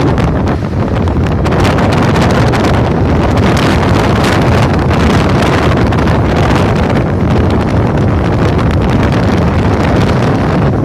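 Loud, steady wind buffeting the microphone, a dense rumbling noise with no pauses.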